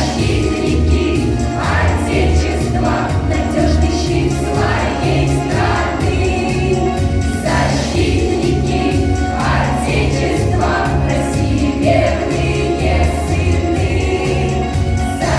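A school vocal group of children singing a song together over an instrumental backing track with a steady bass beat.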